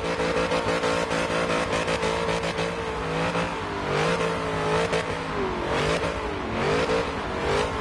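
Holden VZ SS ute's V8 engine revving, its pitch rising and falling again and again.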